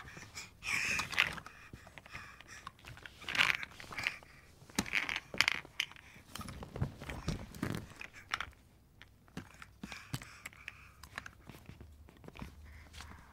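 A baby playing with a toy, handling and mouthing it: scattered clicks, scrapes and crunching noises. A few louder short bursts come about a second, three and a half and five seconds in, with quieter clicking later on.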